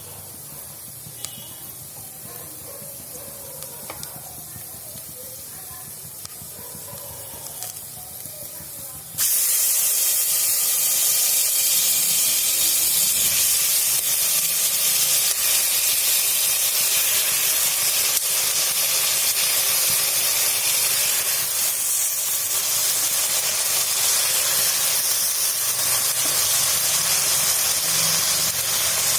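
Pressure cooker venting steam at full pressure: a loud, steady hiss starts suddenly about nine seconds in and keeps on. Before it there is only a fainter hiss with a few small ticks.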